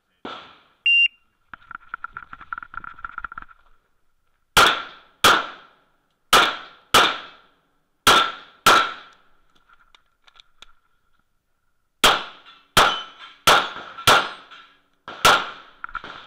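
A shot timer beeps once about a second in, then a Smith & Wesson M&P9L 9mm pistol fires about eleven shots, mostly in quick pairs, with a pause in the middle of the string.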